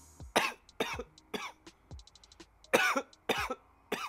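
A person coughing hard after inhaling cannabis smoke: about six harsh coughs in two bunches.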